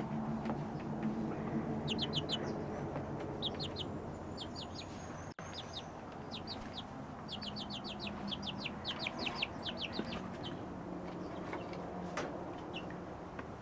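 Young rooster chicks peeping, short high chirps coming in quick runs, with a fast run of about a dozen partway through. A low steady hum runs underneath.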